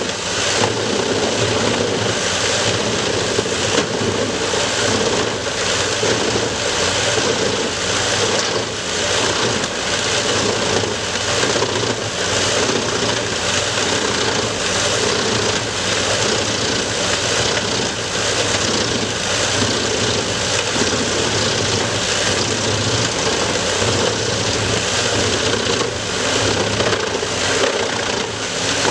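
Wood chipper running steadily at full speed, its engine and cutting drum giving a loud, even, continuous noise.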